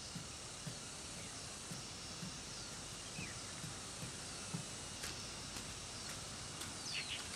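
Faint outdoor ambience with a few short bird chirps, over soft regular footsteps on a path, about two a second.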